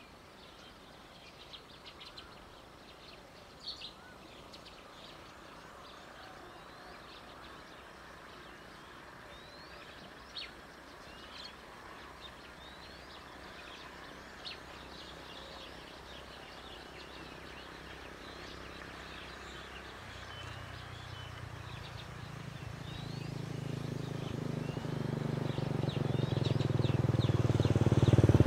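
Small birds chirping here and there over quiet open-field background noise. About two-thirds of the way through, a vehicle engine comes in low and grows steadily louder as it approaches, becoming the loudest sound by the end.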